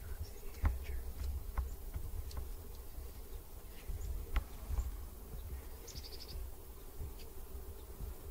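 A flying insect buzzing steadily, over a low rumble with scattered small clicks. About six seconds in comes a brief run of rapid high chirps.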